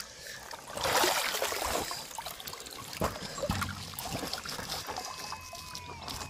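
Splashing in shallow river water as a caught fish is handled. It is loudest about a second in, followed by smaller splashes and knocks.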